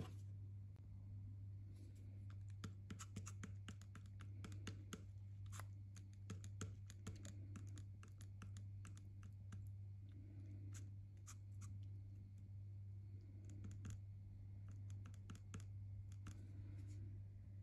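Many faint, irregular small clicks and taps, denser in the middle, over a steady low hum.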